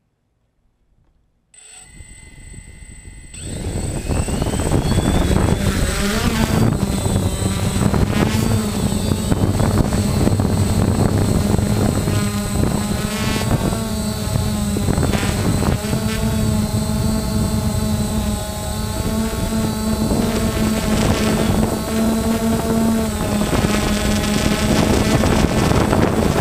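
DJI Phantom FC40 quadcopter's electric motors and propellers, heard from the camera mounted on it. After about a second and a half of silence the motors start at a low idle, then about three seconds in they spin up with a rising whine to a loud steady buzz that holds as the drone climbs.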